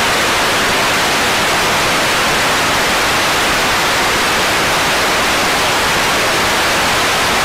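Loud, steady television static hiss, the sound of a lost or broken signal.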